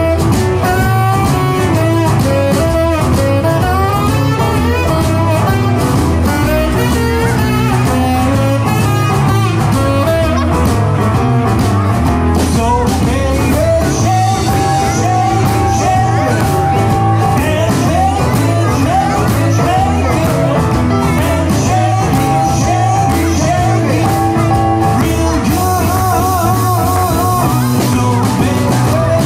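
A rock-and-roll band playing a blues-tinged number live, with singing over guitar, piano, bass and drums.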